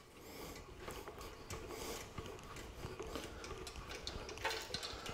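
Engine stand's crank mechanism being wound to turn a bare cast-iron engine block upright: faint small mechanical clicks and ticks, with a slightly louder clatter about four and a half seconds in.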